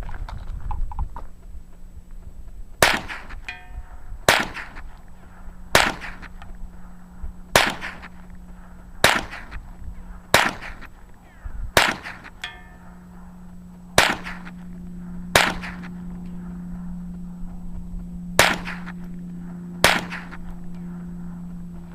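Twelve gunshots from a semi-automatic firearm, fired steadily about one and a half seconds apart, with a brief pitched ring after two of them. A steady low hum runs underneath from the first shot and grows stronger in the second half.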